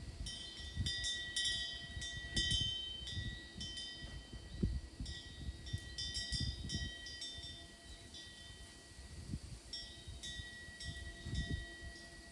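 Metal wind chime tinkling in the breeze, in three clusters of overlapping high ringing notes: in the first few seconds, around the middle, and again near the end. An irregular low rumble runs underneath.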